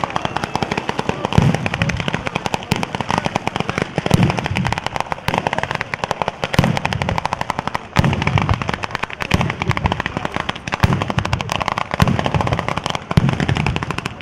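Batteria alla sanseverese, a ground-laid chain of firecrackers, going off in a dense, unbroken rattle of cracks. Heavier bangs come about every second and a half.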